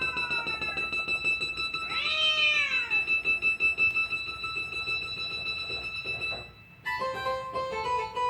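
Cat meows mixed with piano notes: a meow falling in pitch at the start and a second meow rising and falling about two seconds in, over held piano tones. Near the end, after a short drop, a run of piano notes begins.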